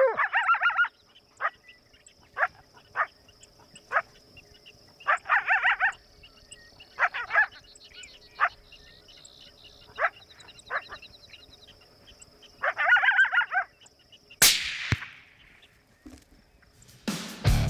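Coyotes barking and yipping: single sharp barks every second or two, broken by three bursts of warbling yips and howls. Near the end comes one loud sharp crack with a ringing tail, and guitar music starts just before the end.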